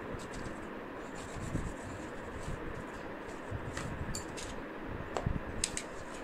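Cardboard pieces being handled and laid down on a stone floor: light rubbing and scattered taps, with a few sharper clicks about five seconds in, over a steady background hiss.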